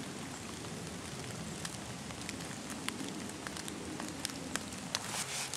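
Rain pattering steadily, with scattered sharp ticks of single drops.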